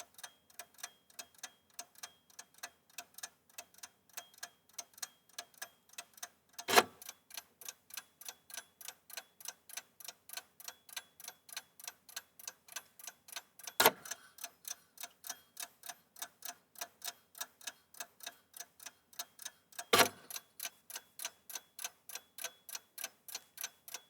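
Mechanical chess clock ticking steadily at about three ticks a second, with three much louder clacks spread through it.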